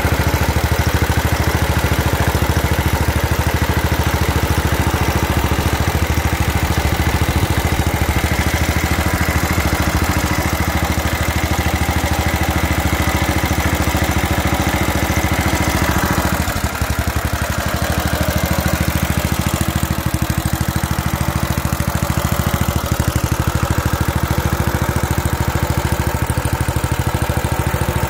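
Wisconsin AA single-cylinder air-cooled engine running steadily at idle, with a brief dip in loudness about two-thirds of the way through.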